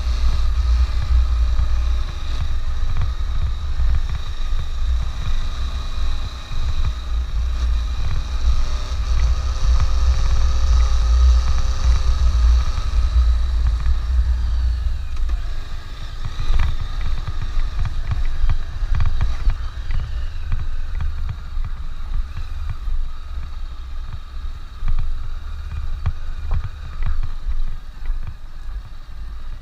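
Honda CB500X parallel-twin motorcycle running while being ridden, under a heavy, continuous low wind rumble on the microphone.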